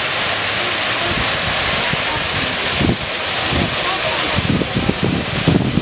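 Steady rushing wind noise on the microphone, buffeting in uneven gusts through the second half, with faint voices of distant people underneath.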